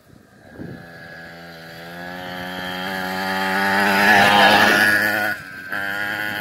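Engine of a children's mini quad bike running steadily, growing louder as the quad comes close and passes around four seconds in. Just after five seconds the note drops away briefly, then picks up again.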